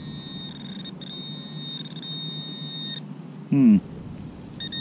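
Garrett Pro-Pointer AT pinpointer sounding a steady high alarm tone as it is worked around a dug hole, picking up metal: on for about a second, then about two seconds after a short break, and briefly again near the end. About three and a half seconds in, a short vocal hum is the loudest sound.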